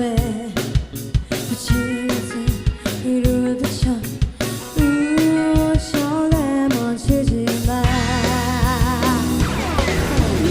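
Live band playing a K-pop song cover, a woman singing in Korean over drum kit and guitar. About eight seconds in, the band thickens into a fuller, sustained sound under a held, wavering vocal note.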